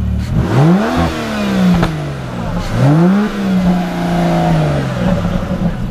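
Car engine blipped twice from idle: a short rev that rises and falls back, then a second rev held high for a couple of seconds before dropping. A single sharp click sounds a little under two seconds in.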